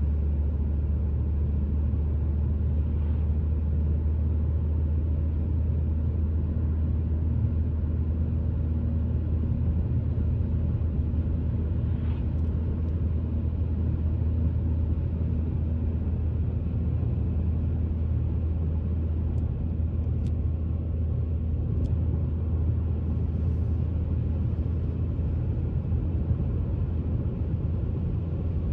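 Steady low rumble of a car driving along a road: tyre and engine noise heard from inside the cabin.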